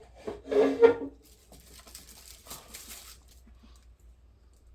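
A short loud voice-like sound about half a second in, then a couple of seconds of faint rustling and crinkling, like paper or objects being handled on a desk.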